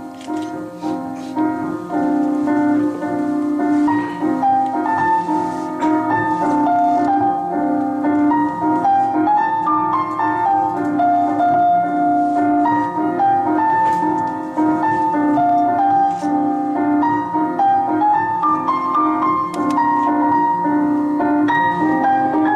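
Piano music: a melody of held notes moving over a steady lower accompaniment.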